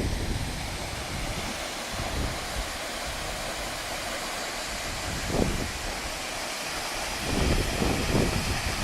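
Steady rushing of a waterfall, with wind buffeting the phone's microphone about five seconds in and again near the end.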